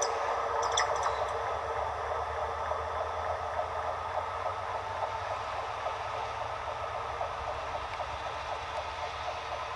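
Plasser & Theurer 08-16 compact tamping machine travelling along the track: its engine and wheels on the rails run steadily, slowly fading as it moves away, with a couple of sharp clicks near the start.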